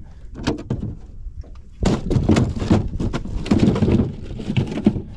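A run of knocks, thuds and clatter on a small fishing boat as a freshly landed redfish is handled, starting about two seconds in and lasting about three seconds.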